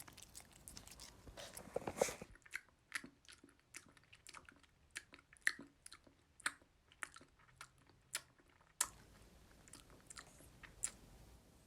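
Irregular, crisp crunching clicks of something hard being chewed.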